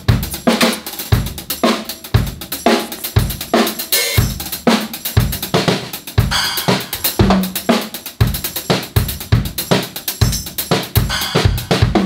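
Drum kit played with sticks: bass drum, snare, hi-hat and cymbals in a fast, busy groove with fills.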